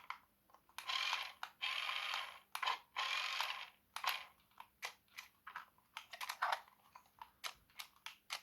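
Plastic parts of a toy RC car being handled: a few bursts of rustling about a second in, then a string of light, irregular clicks and taps.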